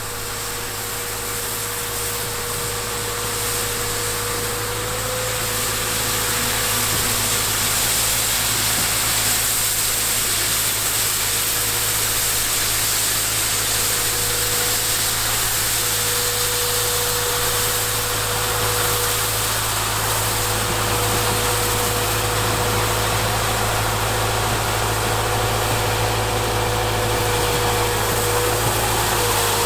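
Volvo EWR150E wheeled excavator's diesel engine running under load while its hydraulically driven rotary snow sweeper brushes and throws snow, a steady hiss with a constant whine over it, growing louder over the first several seconds as the machine comes closer.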